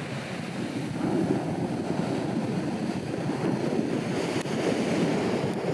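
Ocean waves breaking and washing up on a beach, a steady rushing surf, with some wind on the microphone.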